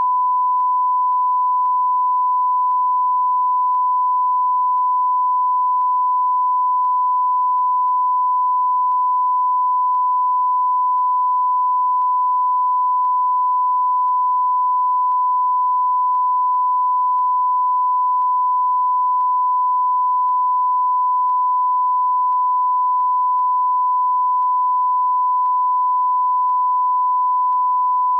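Steady 1 kHz sine-wave test tone, the line-up tone that runs with broadcast colour bars, held at one pitch and level throughout.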